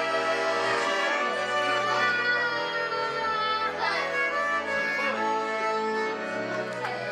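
Violin, accordion and double bass playing together, the violin leading the tune.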